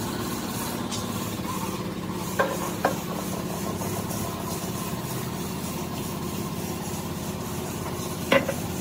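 A steady low mechanical hum, like an engine idling, with three sharp knocks: two close together about two and a half seconds in and one near the end.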